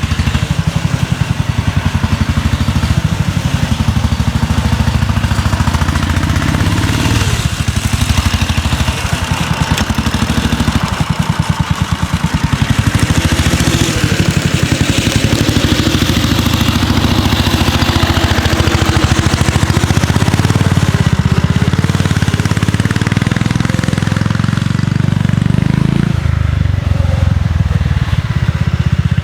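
1963 Cushman Trailster scooter's single-cylinder engine running under way on a trail ride, a steady rapid firing beat whose note shifts a few times as the throttle changes.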